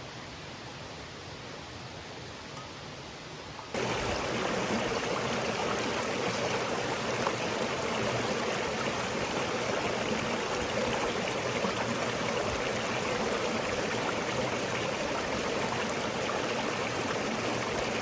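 Small creek flowing, a steady rush of running water. About four seconds in it suddenly becomes louder.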